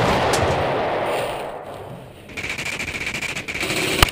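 Airsoft guns firing in rapid rattling bursts, with a dip about halfway through and a sharp click near the end.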